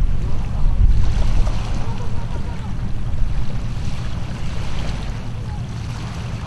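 Wind buffeting the microphone: a low, gusty rumble that slowly eases off toward the end.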